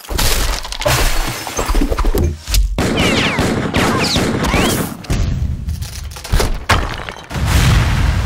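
A rapid montage of impact sound effects cut one after another: crashes, booms and shattering debris, with several sharp hits in quick succession.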